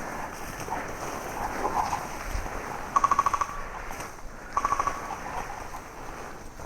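Two short full-auto bursts from an electric airsoft gun, each a quick run of about eight shots at roughly twenty a second, about three seconds in and again a second and a half later, over a steady rustling background.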